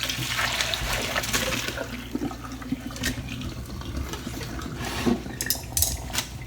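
Hot water poured from a pot of boiled udon noodles into a colander in the sink: a rush of water for about two seconds that trails off. Then a few light knocks and clicks near the end as the noodles are shaken and handled.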